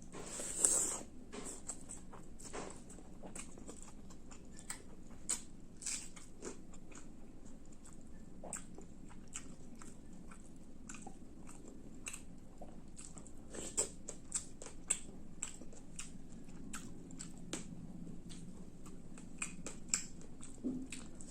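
Close-up mouth sounds of a person eating fish roast with rice: wet chewing, smacking and biting clicks at irregular intervals, with one louder noisy burst about a second in.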